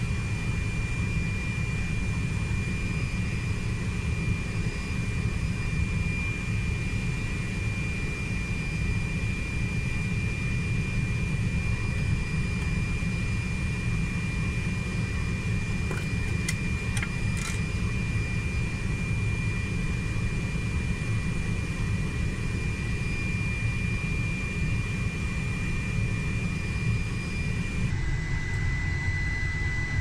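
Steady drone of a parked business jet with its power and systems running, heard in the Gulfstream 450 cockpit: a low rumble under a constant high whine. The whine steps slightly lower near the end, and a few faint clicks come about halfway through.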